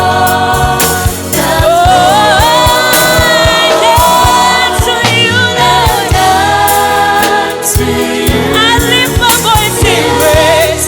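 Gospel worship music: sung vocals with choir over a band with a steady drum beat.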